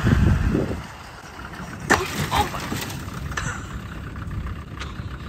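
Land Rover Defender engine running as it drives past, loudest in the first second, then fading to a lower steady sound. A few sharp knocks or cracks come about two seconds in and again a little later.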